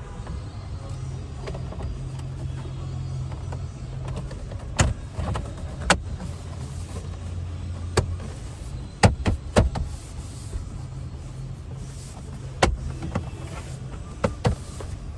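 Plastic interior trim panels being pressed into place, their clips snapping in with a series of sharp clicks and knocks, over a steady low hum.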